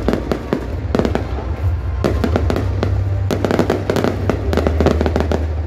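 Aerial fireworks bursting and crackling overhead: many sharp cracks in quick succession.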